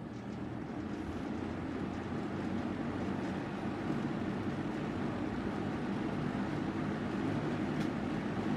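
Toastmaster box fan switched on at low speed: the blades come up to speed over the first couple of seconds, then a steady rush of air over a low motor hum. The motor had seized from sitting unused and was freed with a little oil.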